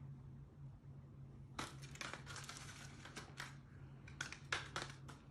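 A run of faint, irregular crackles and clicks, starting about a second and a half in, over a low steady hum.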